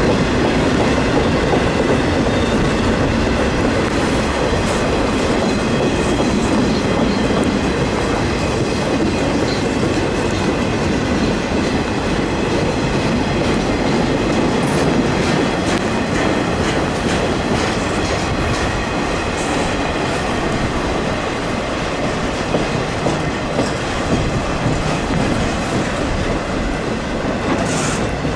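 Freight train of ballast side-dump cars rolling past, with a steady rumble and wheels clattering over the rail joints.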